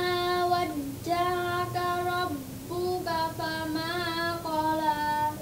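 A young girl's solo voice singing unaccompanied in long held melodic notes, in three phrases with two short breaks for breath.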